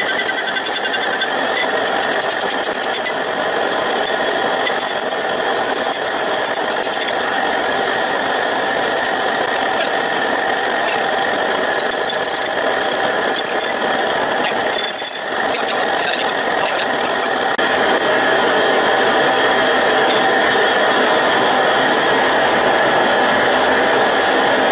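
Forge running with a steady, loud mechanical hum and hiss, dipping briefly about halfway through and getting a little louder later on, with a few faint metallic clicks.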